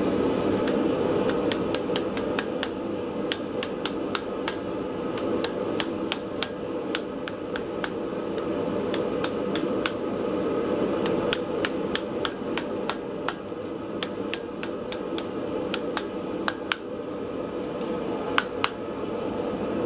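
A forge running steadily, with many irregular sharp ticks and crackles of borax flux on the red-hot steel-cable billet.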